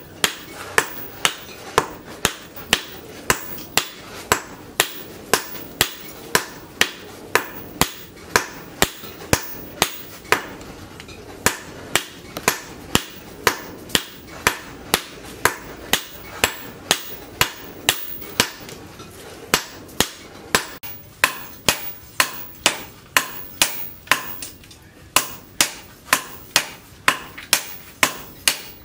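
Hand hammer striking red-hot leaf-spring steel on an anvil in a steady rhythm of about two blows a second, each with a short metallic ring.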